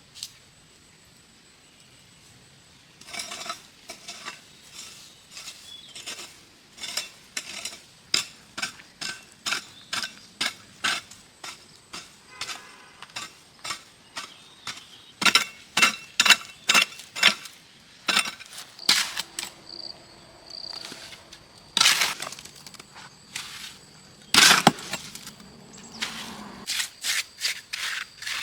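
A series of sharp clicks and clinks of hard objects knocking together, starting a few seconds in and coming about one or two a second, with a few louder knocks in the second half.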